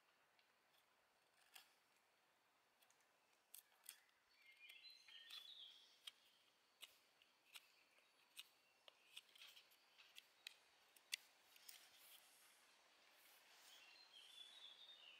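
Knife blade cutting into a small stick of dry wood: faint, irregular sharp clicks and short scrapes as the edge bites and shavings come off. A bird chirps briefly twice in the background.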